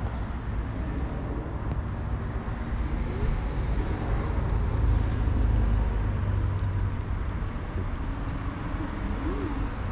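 Low rumble of passing road traffic, swelling about halfway through as a vehicle goes by.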